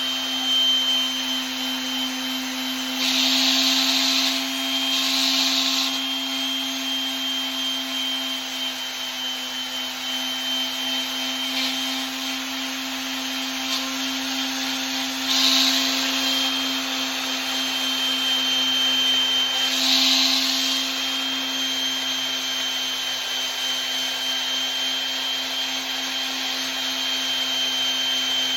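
Electric sander with 1500-grit sandpaper running steadily on a brass putter head, its motor humming evenly. Hissing bursts come about three seconds in, around fifteen seconds and around twenty seconds, as the paper is pressed against the brass.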